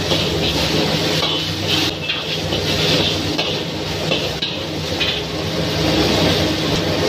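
Noodles sizzling as they are stir-fried in a hot, smoking wok, with a long-handled ladle scraping and knocking against the wok in irregular strokes. A steady low hum runs underneath.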